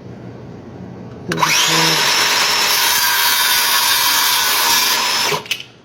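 A power tool runs steadily for about four seconds. It starts abruptly a little over a second in and cuts off near the end, with a high, hissing whine.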